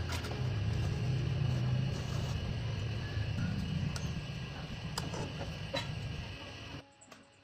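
A machine running steadily with a low hum, with scattered clicks and knocks over it; the sound cuts off abruptly near the end.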